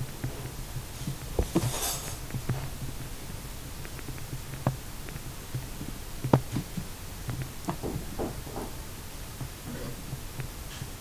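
Tabby kitten playing at a plastic toolbox and chewing on the handle of a pair of pliers: scattered small clicks and knocks, the loudest about six seconds in, over a low steady throb.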